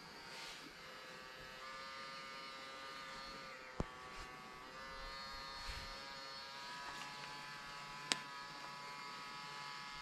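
Honeybees buzzing in a steady hum, stirred up by the varroa fumigation of their hive. Two short sharp clicks, about four and eight seconds in.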